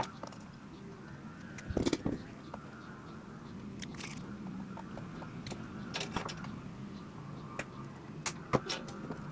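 Small clicks and taps of hands and tools working on a CRT TV's power-supply circuit board over a faint steady hum, with a sharp click at the start and a cluster about two seconds in. Near the end, flush cutters snip the leads of the replacement electrolytic capacitor, a few sharp clicks close together.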